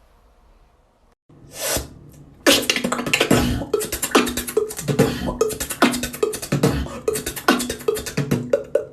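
Human beatboxing. After a near-quiet start and a short hiss, a fast beat of mouth-made kicks, snares and clicks over a stepping hummed bass line starts about two and a half seconds in.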